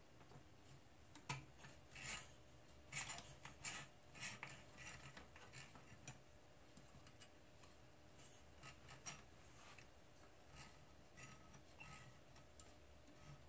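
Faint clicks and rubbing as multimeter test probes and stiff hookup wires are handled inside a vintage power supply chassis, busiest in the first few seconds, then only scattered ticks over near silence.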